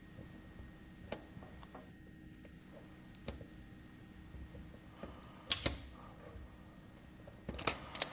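Light clicks and taps of small parts being handled by hand: a few scattered ones, a louder pair about halfway through, then a quick run of clicks near the end.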